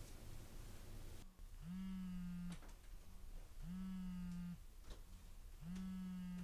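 Mobile phone vibrating on a bed: three buzzy pulses of just under a second each, about two seconds apart, as an incoming call rings.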